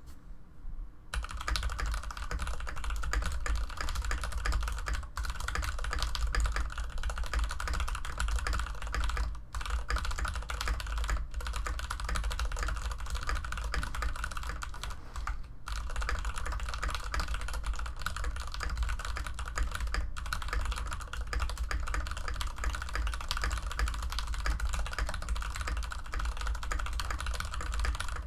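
Fast continuous typing on a Varmilo VA87M tenkeyless mechanical keyboard with Cherry MX Red linear switches, a dense clatter of keystrokes at around 140 words per minute, with a couple of brief pauses.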